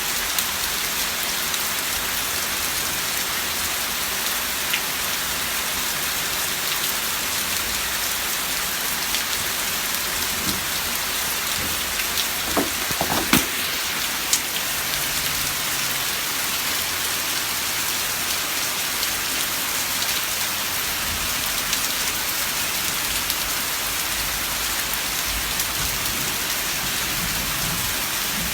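Steady, even hissing noise, like rain, with a few light knocks about twelve to fourteen seconds in.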